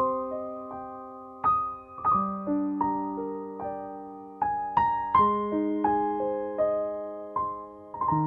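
Background piano music: single notes and chords struck about once or twice a second, each left to ring and fade.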